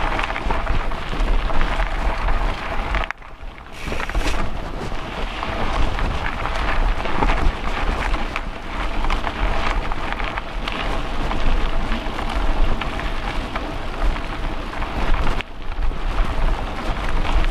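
Mountain bike rolling fast over a dirt trail: a steady crunching rush of tyres on loose ground with many small rattles and knocks from the bike, picked up through the handlebar mount. The noise drops away for a moment about three seconds in, and again near the end.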